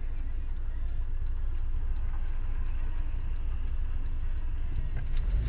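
Steady low rumble of a car driving, engine and road noise heard inside the cabin through a dashcam microphone.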